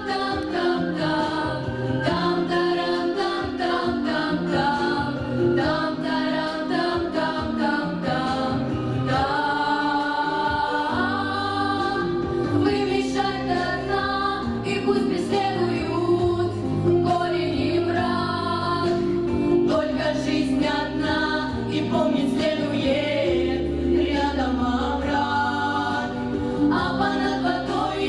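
A vocal group singing a song, several voices in harmony over sustained low notes.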